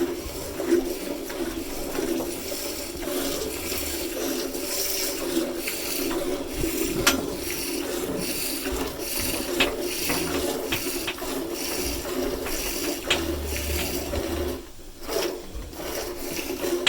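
Hand milking a cow: streams of milk squirting into a pail in a steady rhythm, with a brief pause near the end.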